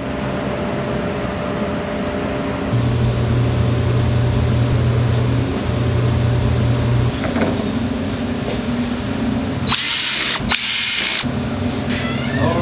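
Electric drill running steadily, its hum stepping louder and softer, as the stripped spark plug hole is drilled out for a helicoil insert. Near the end come two short, loud bursts of hiss.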